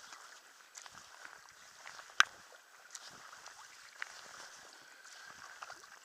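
Kayak being paddled: water splashing and trickling off the paddle blades in small irregular splashes, with one sharp knock about two seconds in.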